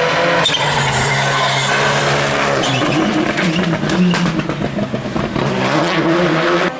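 Rally car driven hard on a gravel stage, its engine revving up and down through gear changes, with the hiss of tyres on loose gravel.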